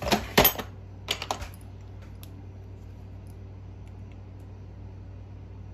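Sharp clicks and clatters of small metal engine parts being handled during a nitro engine teardown. A quick cluster comes at the start and another about a second in, then only faint ticks.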